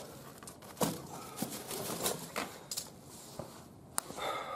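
Cardboard fireworks box in a wire-mesh cage being handled and pulled at: scattered, irregular clicks, scrapes and rustles of cardboard and wire.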